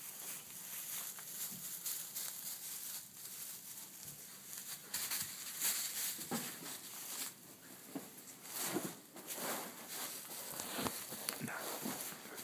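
Loose straw rustling and crackling as a cat and a puppy scuffle and wrestle in it, in irregular bursts with a few brief squeaky sounds.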